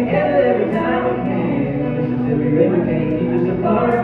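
Music with several voices singing together, held notes changing every second or so.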